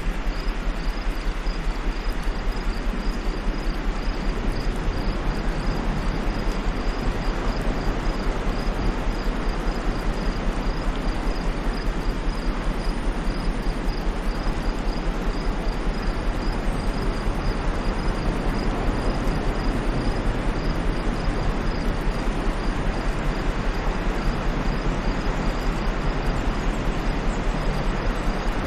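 Steady white noise, an even hiss with no rise and fall, over a fast, regular low pulsing. A faint high chirping repeats at an even pace throughout.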